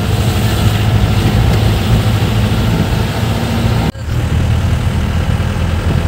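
Vehicle engine and road noise heard from inside the cabin while driving: a steady low drone that briefly drops out about four seconds in.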